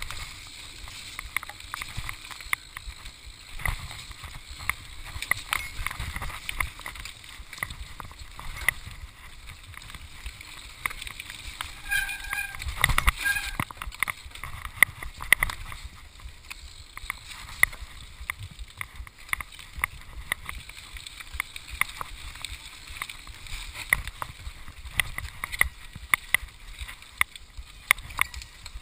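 Mountain bike descending a rough forest trail at speed: a steady rush of tyre and air noise with constant rattling of the bike and many sharp knocks from bumps in the trail.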